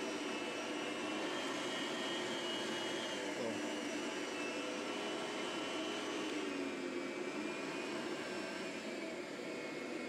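Hoover Platinum lightweight bagged upright vacuum cleaner running steadily on carpet: an even motor rush with a high whine that dips a little in pitch after about six seconds. Its noise, about 70 dB on a sound meter, is called pretty quiet.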